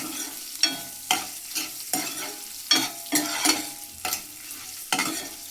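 A spoon stirring onions and spices frying in oil in a pan, scraping the pan in short strokes about twice a second, each with a brief metallic ring, over a light sizzle.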